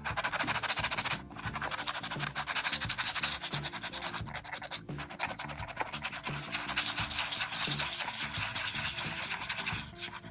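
Quick abrasive rubbing on plastic, like sandpaper worked rapidly back and forth, with brief breaks about a second in and near the middle. Background music plays underneath.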